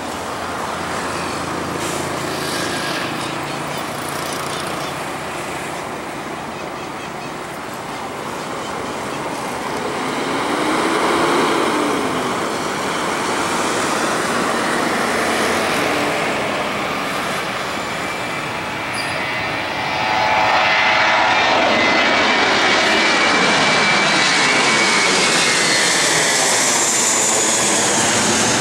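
Airbus A319's twin turbofan jet engines at takeoff thrust, a steady loud rush that grows louder about twenty seconds in as the airliner passes overhead.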